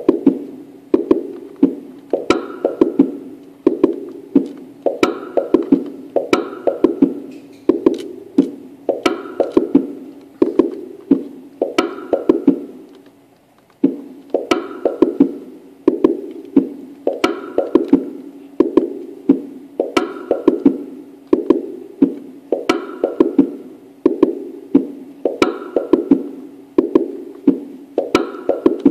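Yamaha Tenori-on playing a looping sequenced pattern of short, pitched electronic notes. The loop cuts out about 13 seconds in and starts again a second later.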